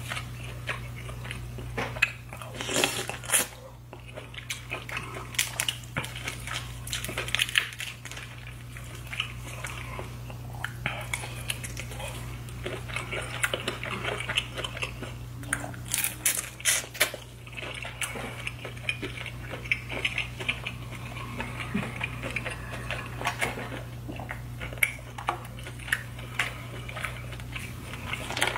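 Close-miked mouth sounds of a person biting and chewing seafood-boil shrimp and corn, with many short sharp clicks, over a steady low hum.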